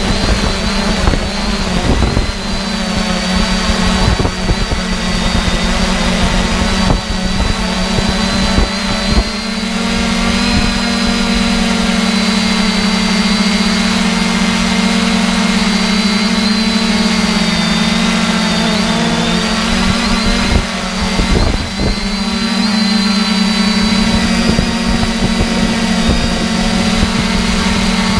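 3DR Iris quadcopter's motors and propellers buzzing steadily in flight, heard close up, with a low hum and a thin high whine that shift slightly in pitch as the throttle changes.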